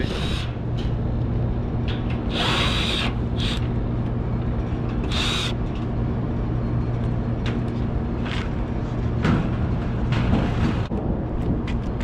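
Cordless drill-driver whining in four short bursts as it backs out the access-panel screws on a packaged rooftop air-conditioning unit, over the steady hum of the running unit. Scattered clicks and knocks follow in the second half as the panel is handled.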